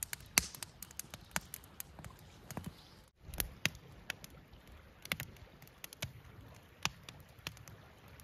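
Wood campfire in a stone fire ring crackling, with sharp, irregular pops and snaps throughout.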